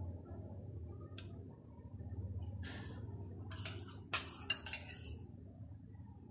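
A metal spoon clinking against glass and dishware: a light tap about a second in, then a quick cluster of clinks near the middle, two of them sharpest, over a steady low hum.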